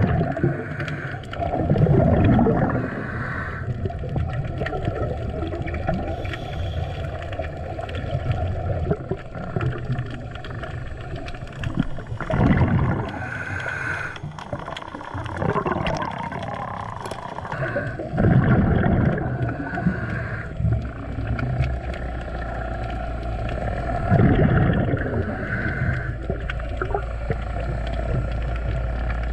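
Underwater sound of a scuba diver's breathing through the regulator, with a rush of exhaled bubbles every five or six seconds over a steady underwater hiss.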